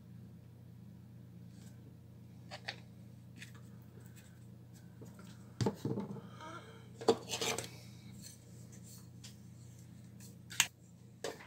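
Small metal hand tools clicking, clinking and scraping in a few short, separate bursts over a faint steady low hum, as leaking capacitors are worked off a computer motherboard.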